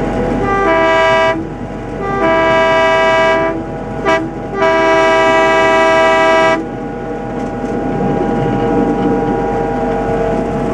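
Locomotive horn sounding the grade-crossing signal: two long blasts, a short one and a final long one, each a steady chord of several notes. The locomotive's steady running and wheel noise continues underneath and carries on alone after the last blast.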